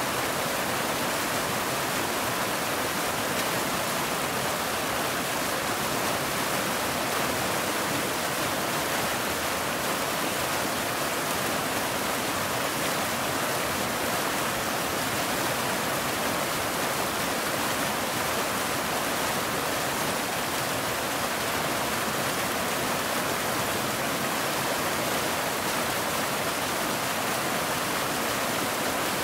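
Waterfall rushing steadily: an even, unbroken hiss of falling water, heavier in the upper range than in the low rumble.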